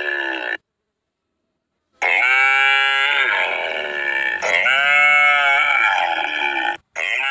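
Young calf bawling in long, high calls that drop in pitch at the start and then hold. One call cuts off about half a second in. After a second and a half of silence, three calls follow one after another.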